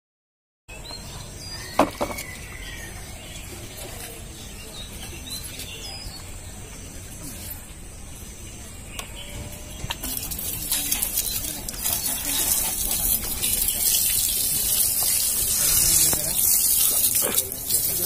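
A jet of water sprays from a hose fed by a homemade 12 V DC-motor washer pump and hits a motorcycle wheel with a steady hiss and splatter. It starts about ten seconds in and grows louder. Before that there is only quiet background with a single knock.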